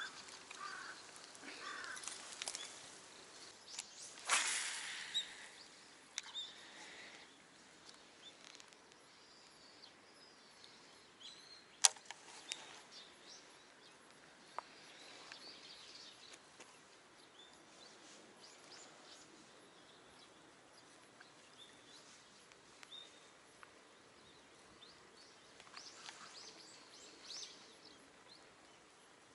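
Quiet outdoor ambience by water: rustling and brushing through grass at first, then calm, with one sharp click about twelve seconds in and faint bird chirps.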